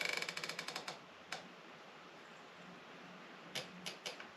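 Riflescope turret being turned by hand, giving a fast run of detent clicks (about a dozen in the first second), one more click a moment later and a short run near the end: the reticle being adjusted onto the target while bore-sighting.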